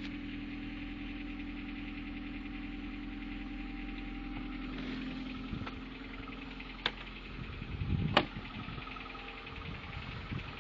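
Lada VAZ-21126 1.6-litre 16-valve four-cylinder engine idling cold just after starting, with a fast light metallic knock that the owner takes for piston knock on a cold engine. A few sharp clicks sound in the second half.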